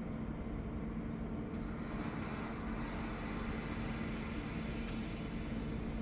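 Machine pump running with a steady hum while water flows out through a filter tube into a container; the rushing hiss of the flow grows stronger about two seconds in.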